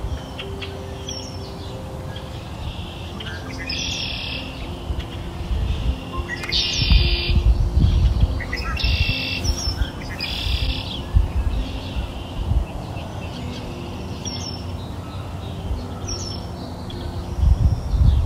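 Birds chirping, with several short bursts of song over a steady low background.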